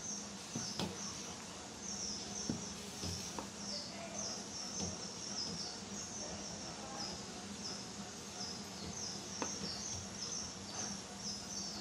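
High, short chirps repeating about twice a second in the background, over the soft stirring of thick idli batter in a steel bowl with a few faint taps, and a low steady hum.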